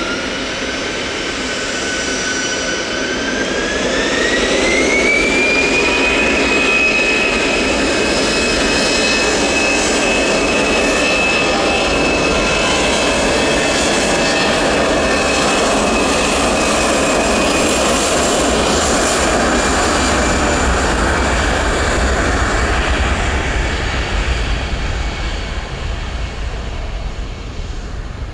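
Airbus A320's CFM56 jet engines spooling up to takeoff thrust: a whine rises in pitch over the first few seconds, then holds steady above a loud roar as the jet rolls down the runway, fading near the end.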